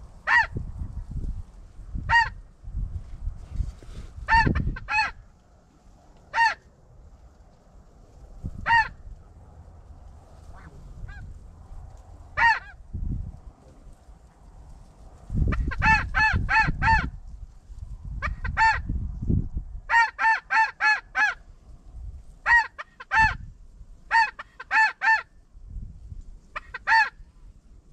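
High, clear snow goose honks, one at a time at first and then in quick runs of four to six, under a low rumble of wind on the microphone.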